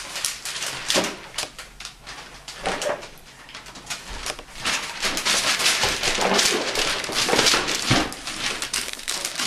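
Shiny green gift wrapping crinkling and rustling as a child pulls and handles it, in irregular crackles with a quieter spell about two to three seconds in.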